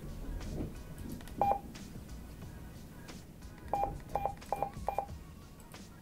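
AnyTone handheld DMR radio's keypad beeps as its buttons are pressed to open and scroll through the menu: one short beep, then four quick beeps in a row about 0.4 s apart.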